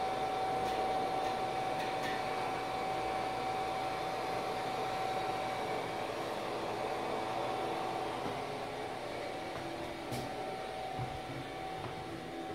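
Steady fan whir of a UV-LED flatbed printer running idle, with one steady high tone over the hiss. A faint click about ten seconds in.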